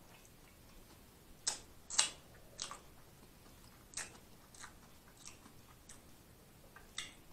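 A person chewing a mouthful of corned beef sub with the mouth closed: irregular wet mouth clicks and smacks, about eight in all, the loudest about two seconds in.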